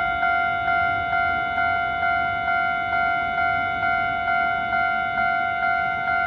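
Japanese railway level-crossing warning bell ringing, an even ringing tone struck about twice a second, the signal that a train is approaching the crossing.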